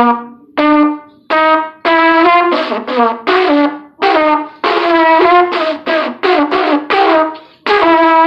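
Solo trumpet played loud, a melody of separate notes in short phrases, with brief breaks about four seconds in and again near the end.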